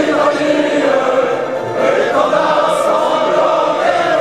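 Choral music: a choir singing long held notes, with no fireworks bangs standing out.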